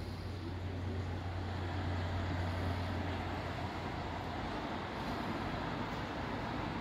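Steady road traffic noise, with a vehicle's low engine hum that fades out a little past halfway.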